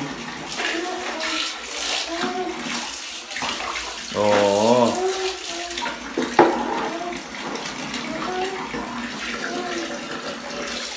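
Tap water running steadily into a bathtub, splashing into a plastic bucket that a toddler is holding under it. A voice says a drawn-out 'oo' about four seconds in, and there is one sharp knock a couple of seconds later.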